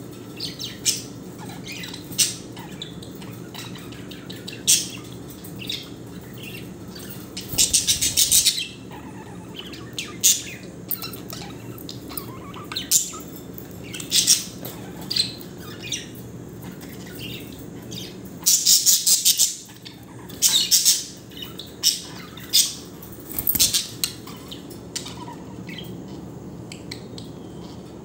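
Caged budgerigars squawking and chirping in short sharp calls, with a burst of rapid chatter about eight seconds in and another near twenty seconds, as males spar beak to beak. A steady low hum runs underneath.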